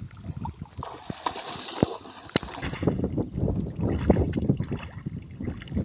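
A few sharp ticks, then a person wading through knee-deep muddy water, the legs sloshing and splashing with each step.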